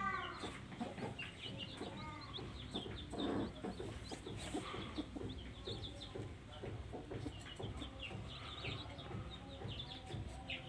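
Chicks peeping rapidly and continuously in short high cheeps. A broody hen clucks once at the start and again about two seconds in.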